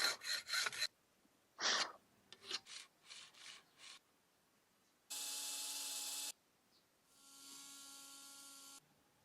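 Rasping strokes of a file or abrasive on a metal arrowhead, in a few quick bursts and then spaced out. About five seconds in, a power tool runs steadily with a high whine for just over a second. Near the end a fainter, steadier motor hum follows, as the piece is ground and polished to a shine.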